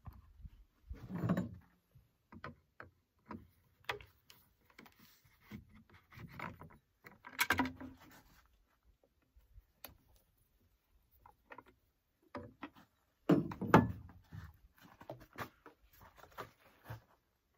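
Irregular knocks, clunks and rattles of plastic fuel and bar-oil jugs and a gas can being handled and set down on a pickup bed beside chainsaws, with a cluster of louder thumps a few seconds before the end.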